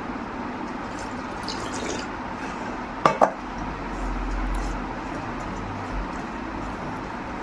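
Two quick, sharp clinks of dishware about three seconds in, like a metal plate or bowl being knocked during a meal, with a few faint small clicks of eating over a steady background hiss.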